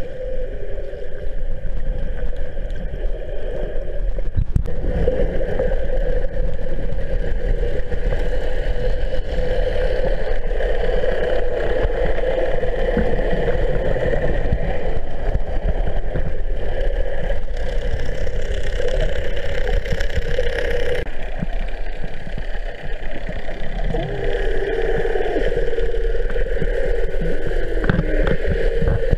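Steady drone of a boat's motor and propeller heard underwater, a hum with a few fixed tones over it. Near the end the tones slide up and down a few times.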